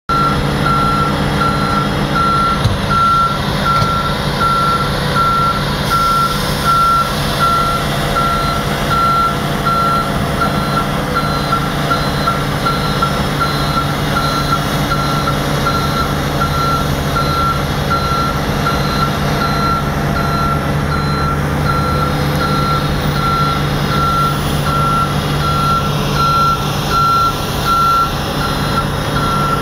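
Reversing alarm beeping steadily in a fast, even series of high beeps, over the steady low running of a heavy diesel engine, from a heavy-duty tow truck maneuvering with a city bus on its underlift.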